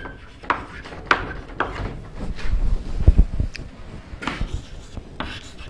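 Chalk tapping and scraping on a chalkboard in short strokes as words are written, with a few low thumps about three seconds in.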